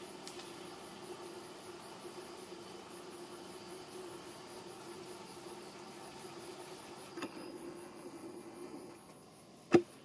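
Insects chirping in a high, fast, evenly pulsing trill, with a faint low steady hum beneath that fades out before the end. A sharp click near the end is the loudest sound.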